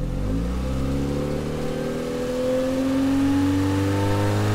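A recorded car engine accelerating, its revs climbing slowly and steadily.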